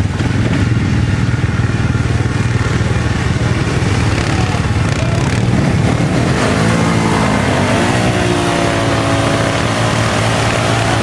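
Several quad bike (ATV) engines running in a mud bog. About six seconds in, one engine revs up, climbing in pitch and then holding at high revs.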